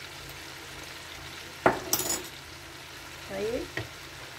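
Sliced vegetables sizzling steadily in oil in a pot. A sharp clink of a spoon is heard about a second and a half in, followed by a few lighter clicks.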